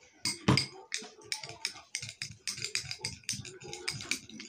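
Metal spoon clicking and scraping against a small ceramic bowl while stirring a thick paste of toothpaste and turmeric, in quick taps about four or five a second, with a louder knock about half a second in.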